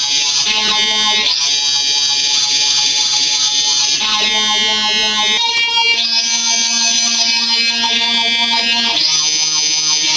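Atari Punk Console, a square-wave noise synthesizer, played through an FX50 sound effects processor: a loud, harsh, buzzy electronic tone rich in high overtones. It jumps to a new pitch and effect setting several times, about every one to three seconds.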